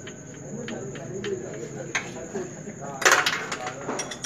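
Crickets trilling in one steady high tone, under a low murmur of voices, with a few light clicks and a sudden loud burst of noise about three seconds in.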